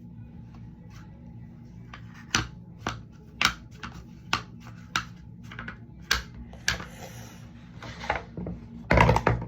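Slime being squished and worked by hand, giving a run of sharp, irregular clicks and pops, with a longer, louder crackling squish near the end.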